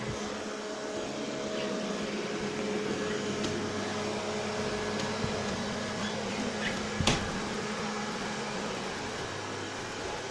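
Vacuum cleaner running steadily with a constant hum, and a single sharp click about seven seconds in.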